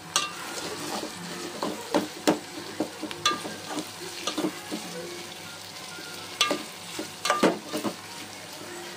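Slotted metal spoon stirring sliced onions, green chillies and tomatoes frying in oil in a metal pot, with irregular clinks and scrapes against the pot over a steady sizzle.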